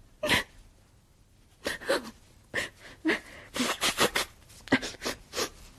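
Short, breathy vocal sounds from a person, coming in quick bursts several times over a few seconds.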